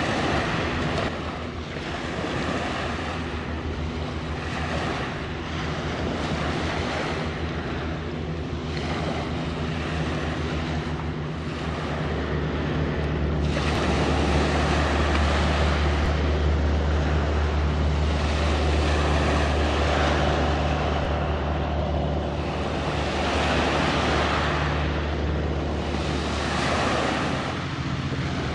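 Steady low drone of a ship's engines, louder from about halfway through, under wind on the microphone and the wash of waves.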